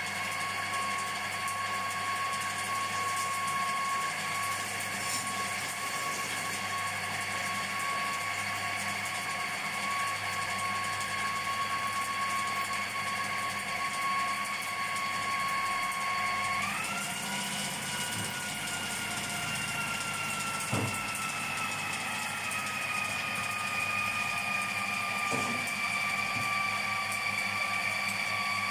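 Electric food processor running steadily, whipping cream with cold milk and sugar, with a high motor whine. About halfway through the whine steps up in pitch, then slowly sinks.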